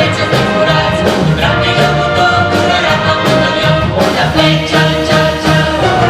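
Live concert band playing an upbeat rock-and-roll number with a steady, driving bass line, with singers' voices over the band.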